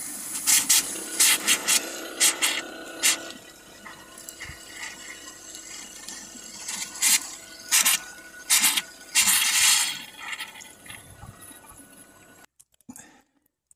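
Pink RV plumbing antifreeze pumped from the camper's sink faucet, pouring into the sink and down the drain to fill the trap for winterizing. Several sharp clicks and knocks come through it, and the flow stops near the end when the tap is closed.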